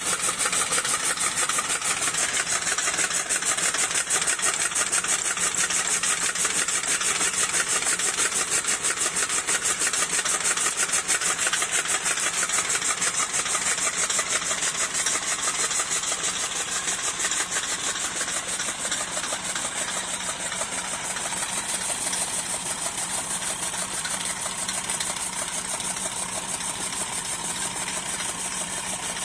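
Massey Ferguson 240 tractor's three-cylinder diesel running steadily to drive a chaff cutter through its PTO shaft, with the cutter's blades chopping and rustling through green fodder as it is fed in. The sound eases a little about halfway through.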